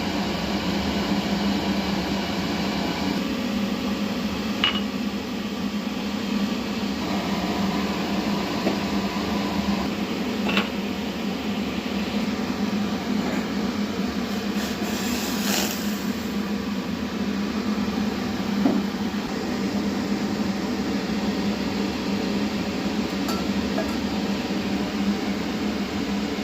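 Steady mechanical hum of a running appliance, with a few light clinks of glass or dishes spaced several seconds apart.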